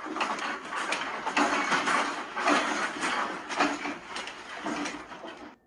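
Hotel room fittings rattling and creaking as the building shakes in a strong earthquake, the clatter swelling about once a second with each sway. It stops suddenly near the end.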